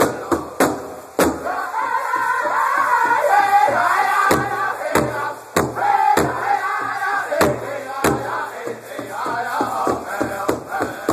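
Powwow drum group singing together over a large drum struck in unison with drumsticks. Through the middle the voices carry loudly over spaced strokes, and a quick even drumbeat of about three strokes a second comes back near the end.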